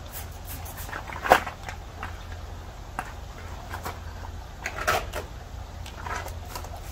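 Hand trigger spray bottle squirting water onto an aluminum pontoon log and its protective film: a few short squirts, the loudest about a second in, more near the end.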